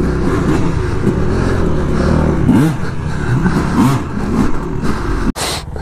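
Yamaha YZ250F dirt bike's single-cylinder four-stroke engine revving up and down as the bike pulls away along a dirt trail. The sound cuts off abruptly about five seconds in.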